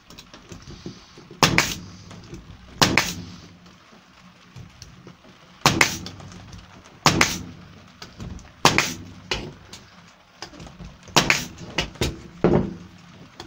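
Bostitch staple gun firing staples through plywood into timber battens: about seven sharp shots, one to three seconds apart, with lighter knocks of the wooden form being handled in between.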